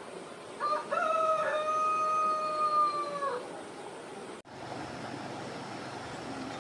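A rooster crowing once: a short first note, then a long held call of about three seconds that drops at the end, over a steady background hiss. A little past the middle the background changes abruptly to a steady low hum.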